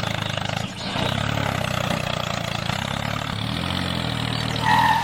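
A small motor running steadily, with a short high tone near the end.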